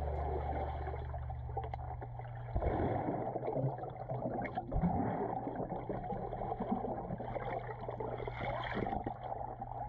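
Muffled underwater pool sound: splashing and bubbling from a swimmer in a fabric mermaid tail diving and kicking, starting about two and a half seconds in, over a steady low hum.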